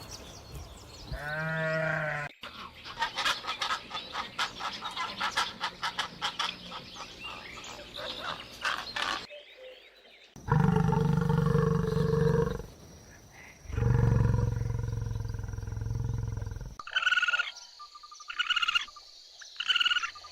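A sequence of different animal calls spliced together. A short bleat-like call comes near the start, then a long run of rapid pulsing calls. Around the middle come two long, loud, low calls, and near the end short calls repeat about once a second.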